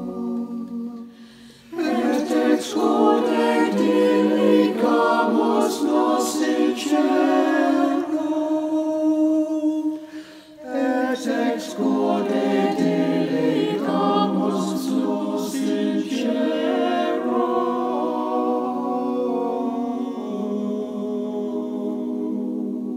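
Choir singing, with short breaks about a second in and around ten seconds, and a long held chord through the last few seconds.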